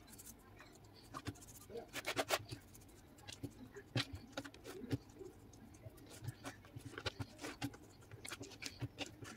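Fingers rubbing spice into a whole fish's skin on a plastic cutting board: faint, irregular scratching and small taps, with a quick cluster of clicks about two seconds in.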